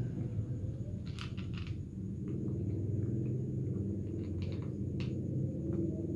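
A cat eating from a plastic bowl, with short irregular crunching clicks from its chewing in small clusters, over a steady low hum.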